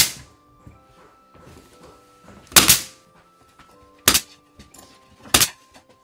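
Four sharp, spaced impacts of nails being driven into solid-wood floorboards, the second one longer, over faint background music.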